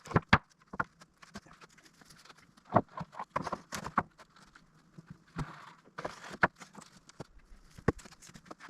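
Freshly milled wooden boards knocking and clattering as they are handled and stacked, with irregular sharp knocks and a few short scuffs about two thirds of the way through.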